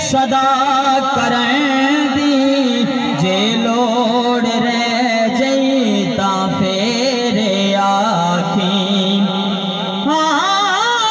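A man singing a devotional chant into a microphone, amplified through a PA loudspeaker. He draws out long, wavering, ornamented notes and starts a new phrase about ten seconds in.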